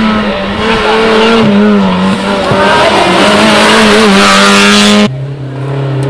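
Peugeot 106 rally car engine held at high revs with a steady note as it powers through a bend at speed. About five seconds in, the sound cuts abruptly to another rally car coming in at lower revs.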